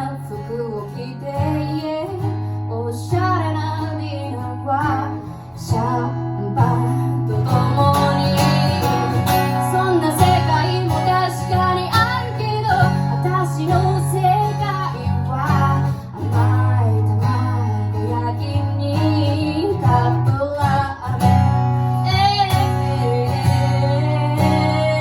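A woman singing a song to strummed acoustic guitar.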